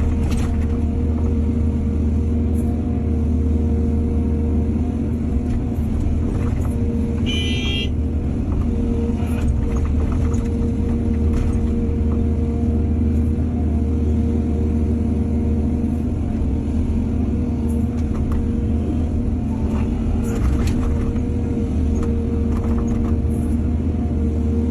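Excavator's diesel engine running steadily, with scattered knocks and clanks and a brief high squeal about seven seconds in.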